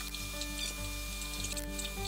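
Background music with held notes over a steady low bass.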